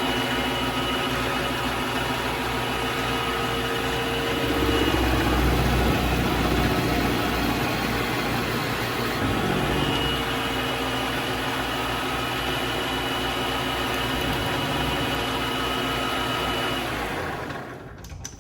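Vevor MX400 mini lathe running with a steady motor whine and hum while facing the end of a screw, a little louder for a couple of seconds about five seconds in. Near the end the lathe is switched off and winds down.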